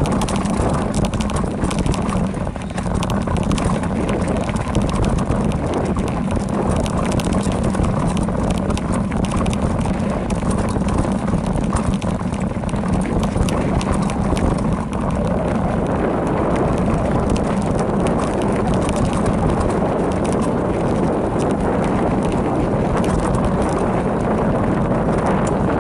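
Specialized Rockhopper mountain bike rolling downhill on a rough dirt trail: a steady rumble of tyres over dirt and stones, with dense rattling clicks from the bike throughout.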